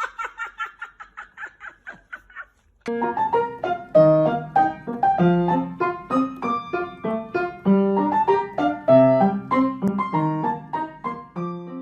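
Background piano music starting about three seconds in, after a short run of rapid, fading high-pitched pulses.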